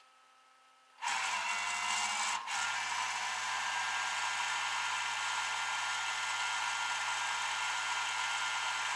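A motor-driven machine starts suddenly about a second in and runs steadily with a whine and hiss, dipping briefly near the middle.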